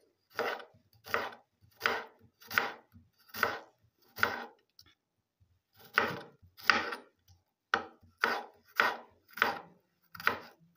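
Kitchen knife slicing a red onion on a cutting board: about a dozen even cuts, roughly one every 0.7 seconds, with a short pause about halfway through.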